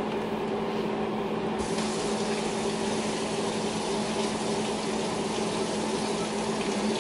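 Steady kitchen background: an even, water-like rushing noise with a low steady hum under it.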